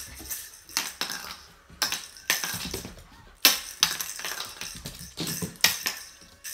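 Irregular sharp clicks and knocks on a wooden floor, about eight of them, each with a short ring, as a puppy plays with a ribbon wand toy.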